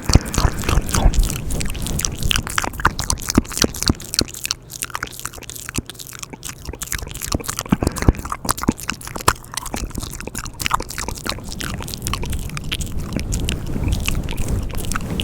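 ASMR mouth sounds close to the microphone: a dense, irregular run of wet clicks and smacks.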